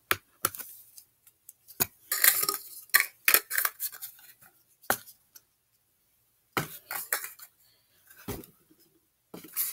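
Small plastic slime containers and lids being handled and set down: a scattered series of sharp clicks, taps and short clattering knocks with quiet gaps between them.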